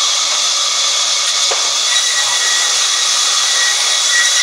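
Band saw ripping a wooden plank lengthwise, a loud steady hiss of the blade in the wood, with a faint high whine joining about two seconds in.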